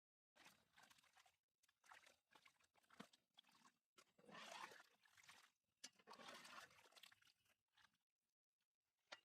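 Faint, irregular crunching and chewing of food, with a few sharp clicks.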